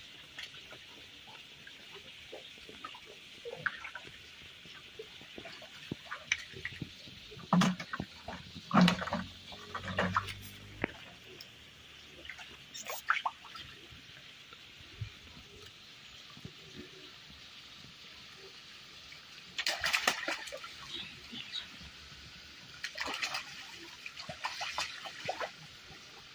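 Shallow stream water trickling steadily, with bursts of irregular splashes and wet slaps as a mass of eel-like fish thrash and hands grab at them in the water. The splashing is heaviest about a third of the way in and again in the last third.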